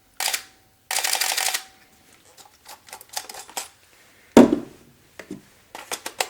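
Canon EOS-1 film camera's shutter and motor drive firing, powered through the PB-E2 Power Drive Booster: one short burst, then a burst of rapid continuous frames about a second in. Quieter clicks follow, with a single loud knock about four seconds in.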